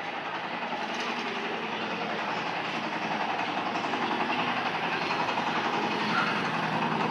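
Steady street noise with a low, engine-like hum, slowly growing louder.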